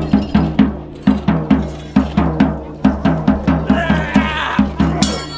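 Drumming: a steady, fast beat of about four to five strokes a second, with a brief wavering high-pitched sound over it a little before the end.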